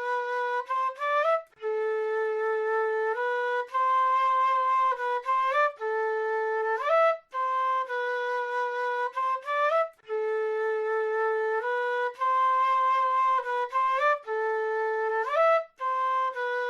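South American flute playing a slow solo melody of held notes in phrases, each phrase ending in a quick rising run of notes, with brief breaks between phrases.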